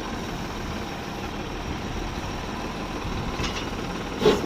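Heavy vehicle engine idling steadily, with a short louder sound near the end.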